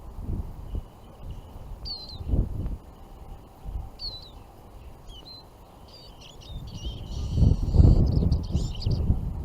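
Small songbirds calling in short high chirps, a few scattered at first and a denser twittering run about seven seconds in. Wind buffets the microphone underneath, loudest near the end.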